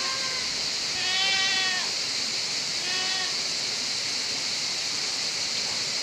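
Goats bleating: the tail of one call right at the start, a longer bleat about a second in, and a short one around three seconds in, over the steady rush of a shallow river flowing over stones.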